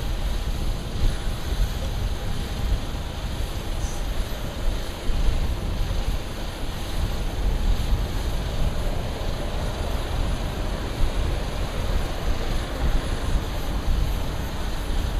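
Boeing 787-9 airliner's jet engines at taxi power: a steady low rumble with a faint whine.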